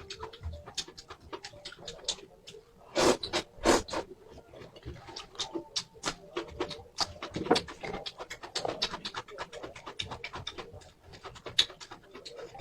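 Close-miked eating sounds: a steady run of wet chewing clicks and mouth noises from someone eating spicy noodles and green chilies, with two louder bites or slurps about three seconds in.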